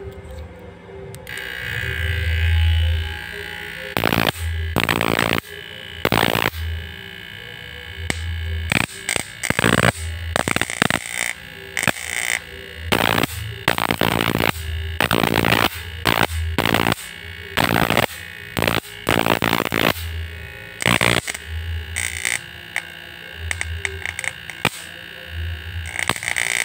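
Short-circuit sparking: a wire touched again and again to the live terminal of a toroidal-transformer power supply, giving many irregular, sharp crackles from about four seconds in, with a low hum that comes and goes. It is a test of the supply's short-circuit protection.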